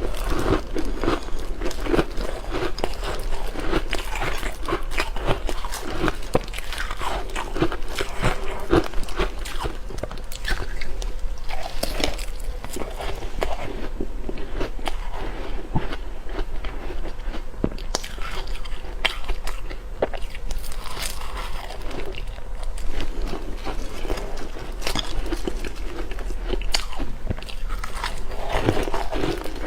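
Ice being bitten and chewed: a dense, continuous run of sharp crunches and cracks.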